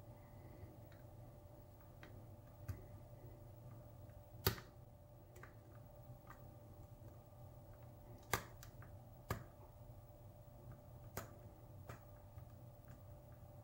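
Faint, scattered clicks of a steel hook pick working the pins inside a pin-tumbler lock cylinder under a tension wrench, the sharpest about four and a half and eight seconds in, over a steady low hum.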